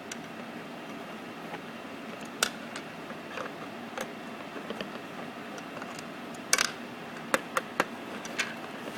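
Hand tools and plastic parts clicking and tapping while the bolts are taken out of the underside of an Acura TSX armrest: scattered sharp clicks, a short cluster about six and a half seconds in and three quick ones near the end, over a steady low background noise.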